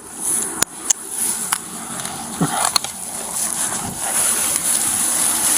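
Clothing and gear rustling against a body-worn camera, with several sharp clicks and knocks in the first three seconds.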